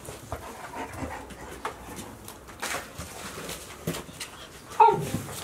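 Golden retriever puppies at play: scattered taps and scuffles of paws on the floor and cardboard, with one short, loud puppy yip near the end.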